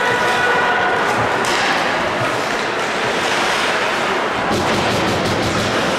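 Loud, steady din of an ice hockey game in an arena: crowd noise with skates scraping the ice and a few sharp clacks of sticks and puck.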